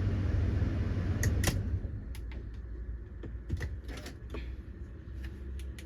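2012 Chrysler Town and Country engine idling just after starting, a steady low hum, with scattered light clicks and taps over it.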